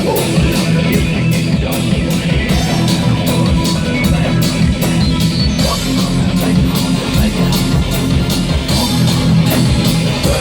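Loud rock music with distorted electric guitar, bass and a drum kit keeping a steady beat.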